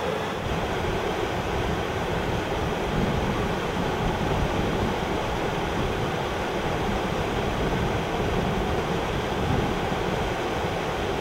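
River water rushing steadily, with a low rumble.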